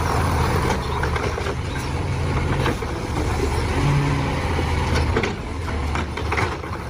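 A steady low rumble like a heavy engine running, with scattered light clicks and knocks over it.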